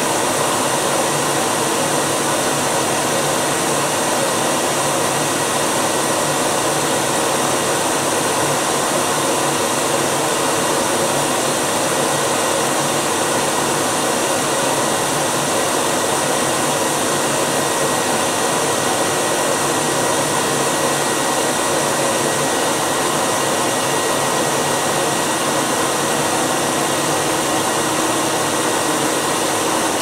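Philips P74 Electronic canister vacuum cleaner running steadily at full suction, mostly the rush of air into and out of the machine with no strong motor whine. Very quiet to the ear, though a sound meter reads it at around 77 decibels.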